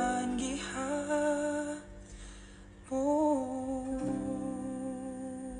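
A man humming the slow melody of a ballad in long held notes, over soft instrumental backing. There are two phrases, with a short break about two seconds in.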